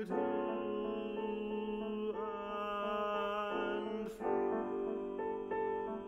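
A tenor voice sings a slow, lyrical art-song line over piano accompaniment.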